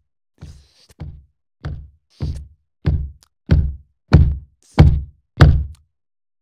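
Heavy footsteps coming closer: nine evenly spaced thuds, a little under two a second, growing steadily louder over the first few seconds and then holding at their loudest.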